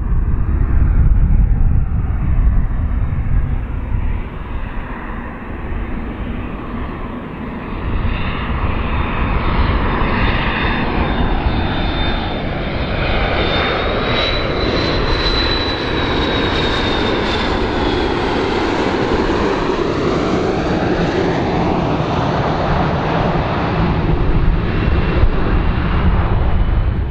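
MD-80-series jet airliner on landing approach, its twin rear-mounted turbofans running steadily with a deep rumble. A high engine whine rises and then falls about halfway through as the aircraft passes.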